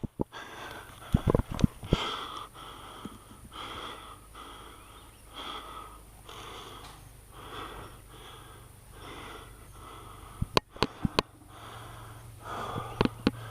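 A person breathing hard and fast, with short rasping breaths about one and a half a second, near the microphone. A few sharp clicks cut in about a second in and a quick cluster of them comes around ten and a half seconds.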